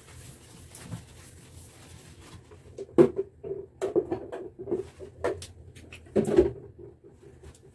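Hand cleaning in a small bathroom: soft wiping at first, then a run of irregular knocks and clatters from plastic bottles and items being handled. The loudest knocks come about three seconds in and again about six seconds in.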